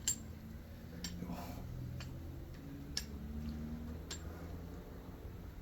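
Sharp, regular ticks about once a second over a faint low hum.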